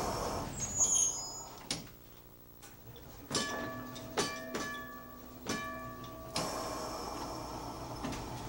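PRT/PTC nearside streetcar 6618 running, heard from the motorman's platform: a string of sharp clicks and clunks, with a steady whine from about three to six seconds in and a steady running rumble after it.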